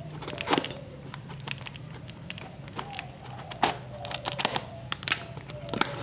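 Packaging being handled during unboxing: scattered sharp clicks and crackles of plastic and cardboard, over a steady low hum.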